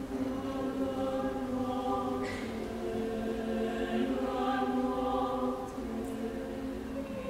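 Mixed choir of men and women singing sustained chords that shift every second or so, with a sung 's' consonant about two seconds in.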